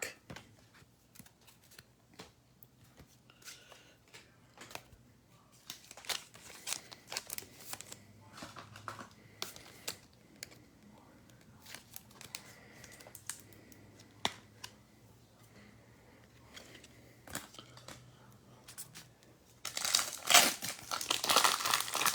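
A trading card pack wrapper crinkling and tearing open near the end, after scattered soft clicks and rustles of cards being handled.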